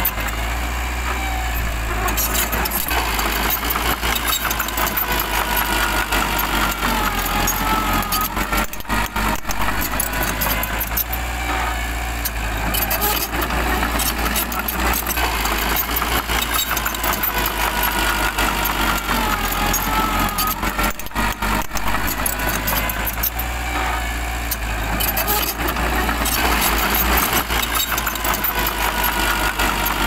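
Small crawler bulldozer's diesel engine running steadily under load as the blade pushes soil and burnt brush.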